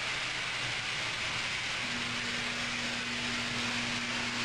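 Steady background hiss with a low electrical hum, and a second low steady hum that comes in about two seconds in.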